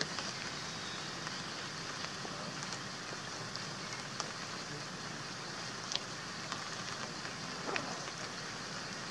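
Steady hiss of outdoor background noise, with a few faint scattered clicks and ticks.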